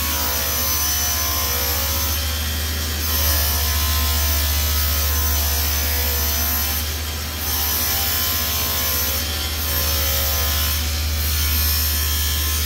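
Table saw running with a deep, steady hum as its blade rips a sheet of 18 mm birch plywood.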